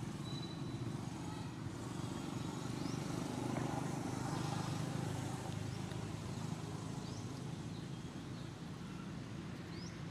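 Outdoor ambience: a steady low rumble with a few faint, very short high rising chirps scattered through it.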